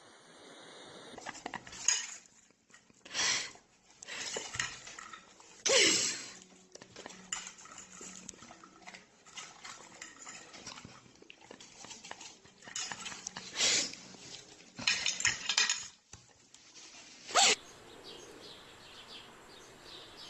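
Irregular clattering and clinking of hard objects, like dishes or utensils being knocked about, with several louder knocks scattered through.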